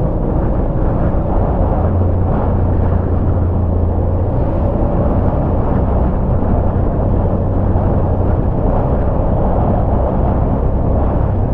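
Motorcycle riding at road speed: a steady engine drone under constant wind rush.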